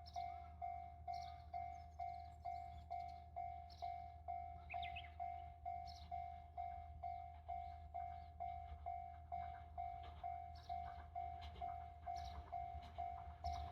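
Japanese level-crossing warning bell ringing, a single electronic 'kan-kan' tone repeating evenly about twice a second.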